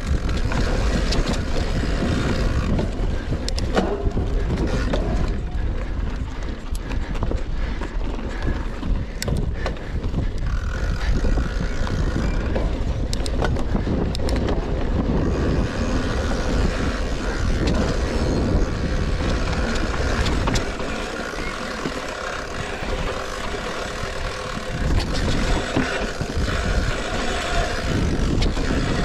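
Rockrider XC 900 mountain bike ridden along a rough forest singletrack: constant tyre rumble and wind buffeting on the action camera's microphone, with frequent rattles and knocks from the bike over bumps. The low rumble eases for a few seconds about two-thirds of the way through.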